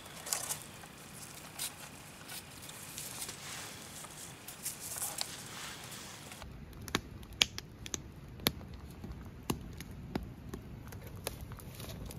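Cord being wrapped and pulled around a bundle of wooden poles, a soft rustling with light scrapes and taps. About six seconds in it gives way to a wood campfire crackling, with sharp irregular pops over a low rumble.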